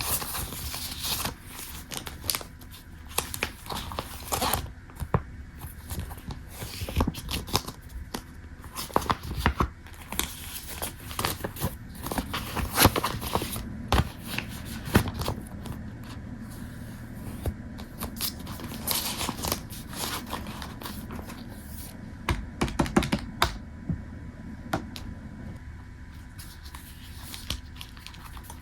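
Irregular small clicks and taps with paper-like rustling and crinkling, the sound of objects being handled.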